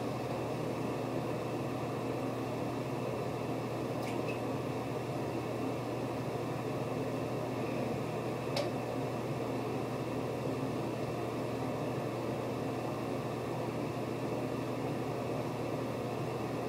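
A steady low hum with an even hiss over it, like a fan or other household appliance running. A faint click comes about four seconds in, and a sharper click about halfway through.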